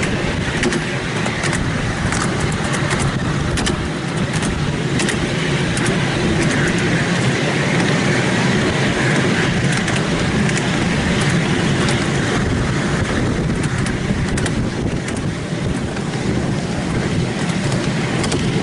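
Miniature steam railway train running along its track, heard from an open passenger car: a steady rumble of wheels on rails with scattered sharp clicks.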